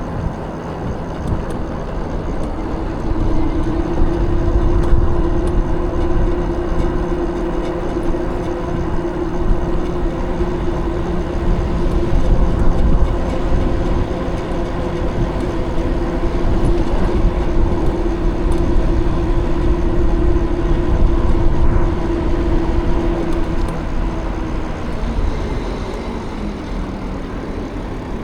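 E-bike hub motor whining at one steady pitch over a heavy low rumble of wind and tyre noise while riding; the whine drops in pitch and fades near the end.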